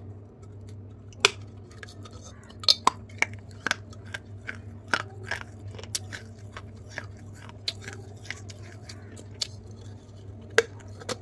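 Teeth biting into and crunching pieces of fired terracotta clay broken from a clay pot's rim, a run of irregular sharp cracks and crunches, loudest about a second in and once near the end. A steady low hum runs underneath.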